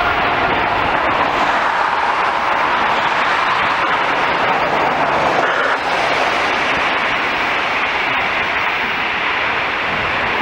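Jet airliner engines making a steady, loud roar.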